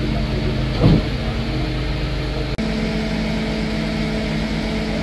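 Steady running of a crane's engine while it hoists a load on its cable. A short, louder sound comes about a second in, and the sound drops out briefly after two and a half seconds.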